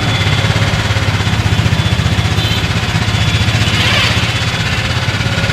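A vehicle engine running steadily at idle, its low, fast pulsing hum the loudest thing, over an even hiss.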